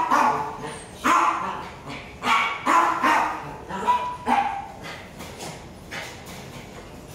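A puppy barking and yipping in play: a quick run of short, high barks, about seven in the first four and a half seconds, then fewer and quieter.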